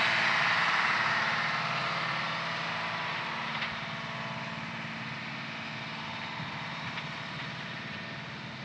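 A vehicle engine running steadily with a low hum, growing gradually fainter.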